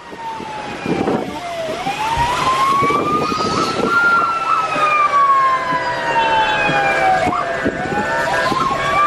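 Wailing siren of a private vehicle passing on a wet highway, heard from inside a moving car: a slow rise and fall in pitch, about six seconds from peak to peak, with a second, steady siren tone joining about halfway through. Road noise from the wet highway runs underneath.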